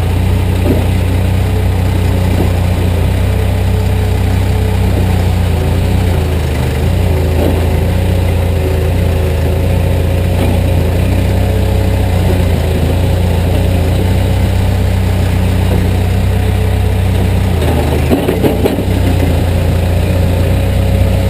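Caterpillar 428B backhoe's diesel engine running steadily under the operator's control, a constant low hum that dips briefly near the end.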